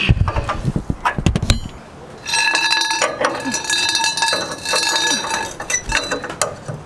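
Steel wrench and a rusty pipe cheater bar knocking and clinking against a truck's pitman arm nut and steering parts. A run of heavy knocks comes in the first second or so, then a steady metallic ringing with clinks over it.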